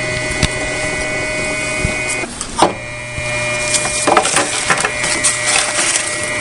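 Steady electrical hum with a high whine from the powered-on Emcee 1140 Mark-X Microsep instrument, cut off briefly about two seconds in. A few light clicks come as its test-select buttons are pressed.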